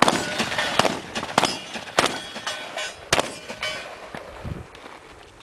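Gunfire: four loud shots spread over about three seconds, with a few fainter cracks between them, some followed by a brief ringing.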